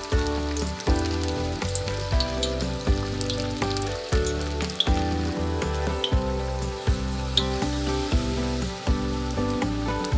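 Sweet potato pakora batter deep-frying in hot oil: a steady sizzle with scattered sharp pops. Background music with a regular beat plays over it.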